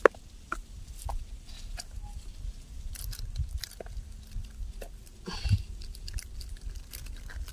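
A clear plastic bag and small plastic containers being handled and opened, giving scattered light crinkles and clicks over a steady low rumble.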